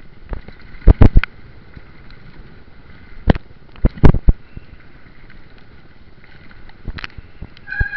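Loud knocks and clatters close to the microphone of a jostled camera as it moves along: a pair about a second in, another around three to four seconds in, and more near the end, over a steady low hiss.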